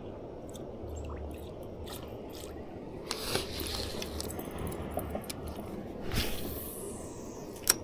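Wading in shallow river water, with soft sloshing and scattered small clicks. About six seconds in comes a cast: a swish, then line hissing off the reel and falling in pitch, ended by a sharp click near the end.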